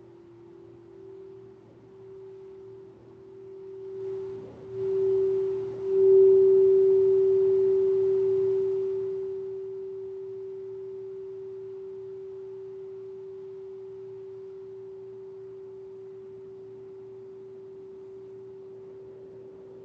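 Singing bowl played by rubbing the rim, its single pure tone wavering at first, swelling loud about five seconds in with a faint rubbing hiss, then ringing on and slowly fading.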